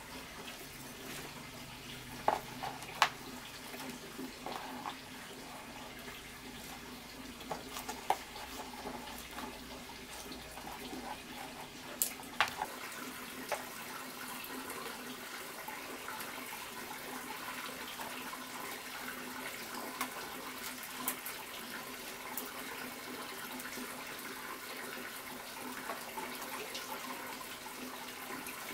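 Steady rush of running water, with a few sharp clicks and taps from grass stems and smoked fish being handled on a plastic tray.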